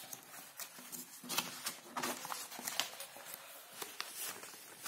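Loose sheets of handwritten paper being gathered and pulled off a desk by hand, rustling and crinkling in quick irregular crackles.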